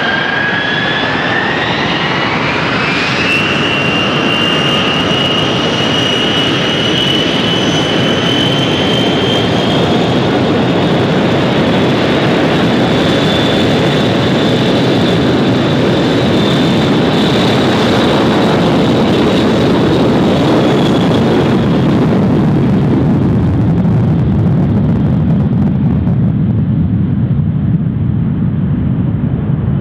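Boeing 720 four-engine jetliner at full takeoff power. The engine whine rises over the first few seconds, then holds steady over a loud roar. After about twenty seconds the whine fades as the jet rolls away and climbs out, leaving a deep rumbling roar.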